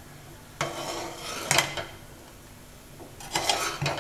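A metal ladle stirring thick tomato curry in a pot, scraping and clinking against the pot in two bouts: one about half a second in, and another near the end. The curry has just started to cook.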